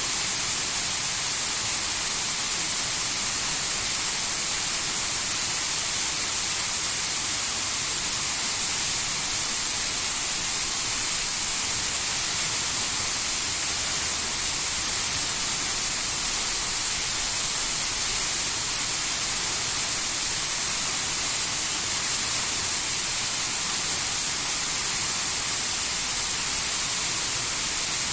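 Waterfall's water pouring and splashing: a steady, even hiss of rushing water.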